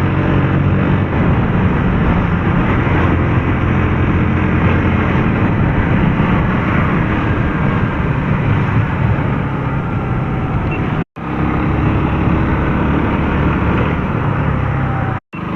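Bajaj Pulsar NS motorcycle engine running steadily on the move, under a steady rushing noise of riding. The sound drops out completely for a split second twice, about eleven seconds in and near the end.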